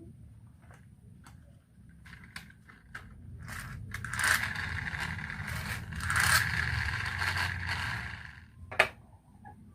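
Marbles rolling down a wooden HABA marble run: a few light clicks as they start, then a continuous rattling roll for about five seconds, ending with one sharp click near the end.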